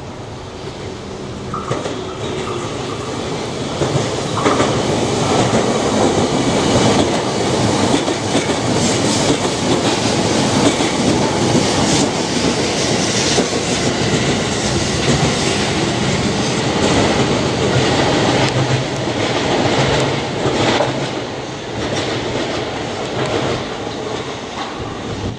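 E655 series "Nagomi" electric train passing through a station at speed, its wheels clattering rhythmically over the rail joints. The noise builds over the first few seconds, stays loud through the middle and eases off near the end as the train goes by.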